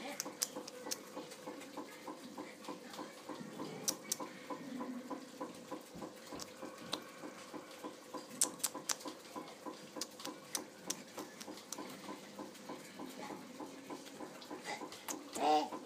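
Irregular light clicks and creaks from a baby bouncing in a doorway jumper, its straps and clamp working and small feet patting the rug. A short baby vocalisation near the end is the loudest moment.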